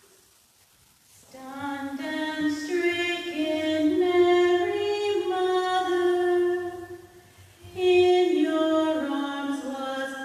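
Unaccompanied female singing of a slow hymn in one melody line, starting about a second in, with a short pause for breath about seven seconds in.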